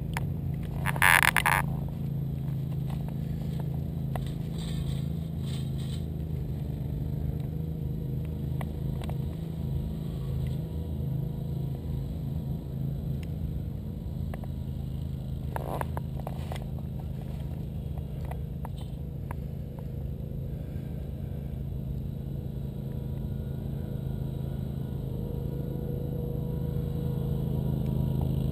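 Steady low motor hum running evenly, with a short loud knock about a second in and a sharper click around sixteen seconds.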